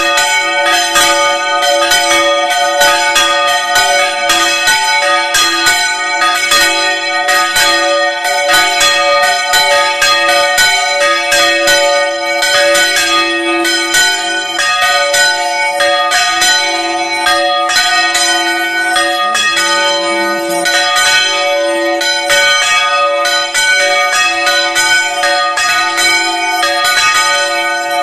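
Two church bells rung by hand on a portable frame. They are swung over mouth-up so their clappers strike in a rapid peal that never stops, several strokes a second over steady ringing tones.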